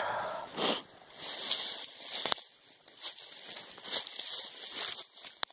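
Footsteps through dry leaf litter and brush: irregular crunching and rustling, with a couple of sharp snaps.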